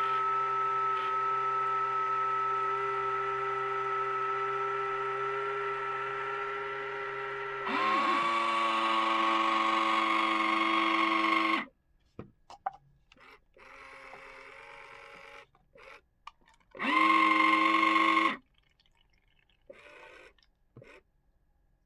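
Omnibot 2000 robot's small geared electric motors running with a steady whine. The whine shifts to a lower pitch about eight seconds in and cuts off sharply near the middle. After a few small clicks, a second brief motor run comes near the end.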